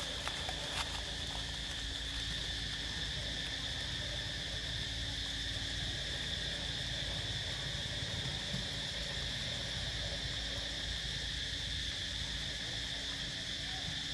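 Steady chorus of forest insects, a constant high-pitched drone that does not let up, over a low rumble.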